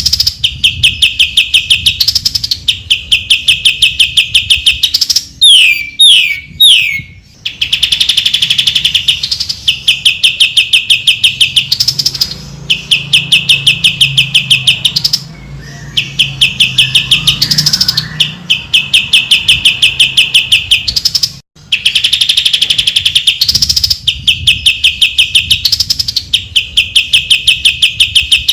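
Cucak ijo (greater green leafbird) song: long runs of rapid, evenly repeated high chirps, about six a second, in phrases of a few seconds with brief breaks, and a few quick falling whistles about five to seven seconds in.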